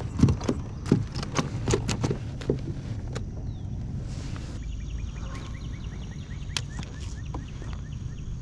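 Wind buffeting the microphone as a steady low rumble. In the first three seconds there is a quick run of hollow knocks and clicks, like gear bumping on a kayak, and from about halfway on a rapid series of faint ticks.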